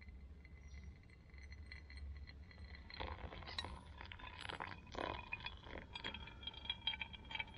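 Hot water poured in a thin stream from a metal mug onto ground coffee in a collapsible pour-over filter, just wetting the grounds before the main pour. Faint trickling and splashing with small clinks, busier from about three seconds in.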